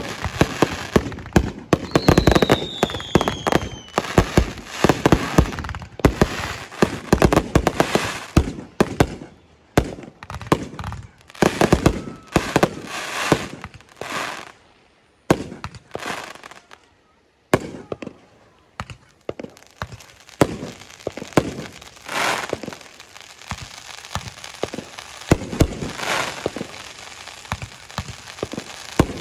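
Fireworks finale: a rapid barrage of aerial shell bursts and crackle, with a falling whistle about two seconds in. The bangs thin out to a brief lull about halfway through, then go on more sparsely.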